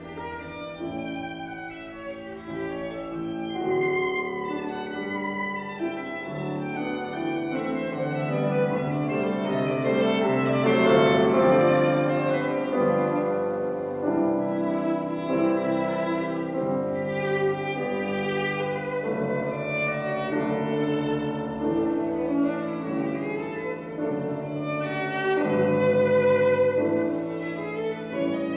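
Violin and piano duo playing, the violin carrying the melody over piano accompaniment, the music swelling louder toward the middle and again near the end.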